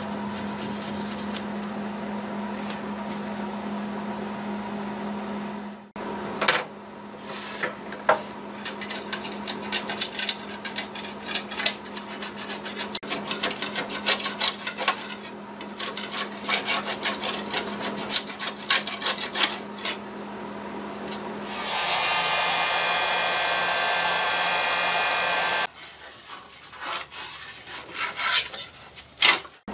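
Rapid back-and-forth strokes of a hand tool rasping across a thin wooden clock-case panel, with a steady low hum in the first few seconds. For a few seconds near the end a steady whir takes over, then lighter strokes resume.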